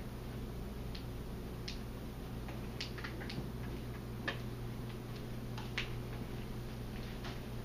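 Scattered light clicks and taps at irregular intervals, over a steady low hum.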